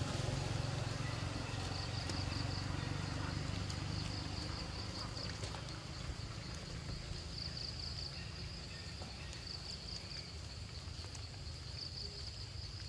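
Forest insects droning in one steady high-pitched band that swells and fades every couple of seconds, over a low rumble that dies away after about four seconds.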